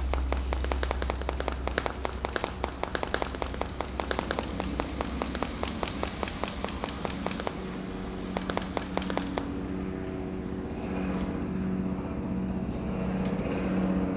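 Hand shock pump being stroked quickly to inflate a RockShox Zeb fork's air spring to 46 psi: a fast, even run of clicking strokes that stops about nine seconds in. A low steady hum remains after that.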